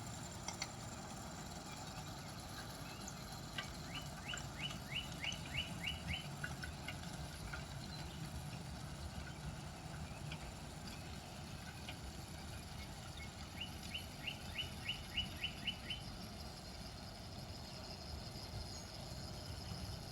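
A bird singing twice, each song a run of eight or nine quick repeated high notes, about ten seconds apart, over a faint steady background hiss.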